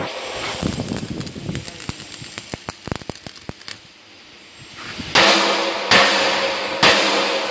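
Stick (arc) welding on a steel beam: irregular crackling and ticking for the first few seconds, then the steady frying hiss of the arc from about five seconds in, with a few sharp knocks of a hammer on the steel.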